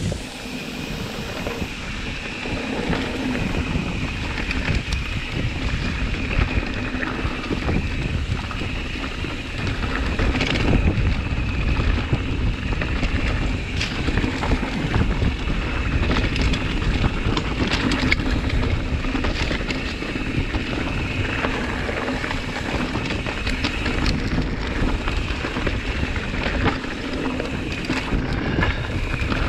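Mountain bike descending a dirt forest trail: wind noise on the microphone and tyre rumble over the dirt, with frequent knocks and rattles from the bike over bumps. It gets louder about ten seconds in.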